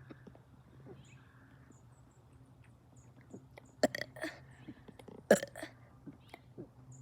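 Two short, sharp throat sounds from a person, burp-like gulps about a second and a half apart, each followed by a few smaller ones, over a faint steady low hum.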